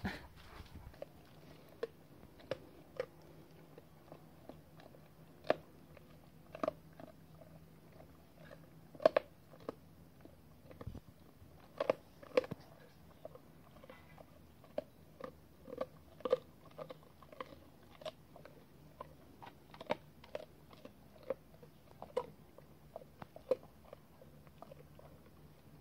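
A Malaklı shepherd dog chewing and crunching on something hard, with irregular crunches and clicks about once or twice a second.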